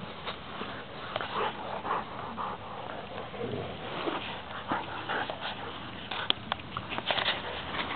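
Two Dogo Argentinos, an adult and a puppy, play-fighting, making short, irregular dog noises, with a few sharp clicks after about six seconds.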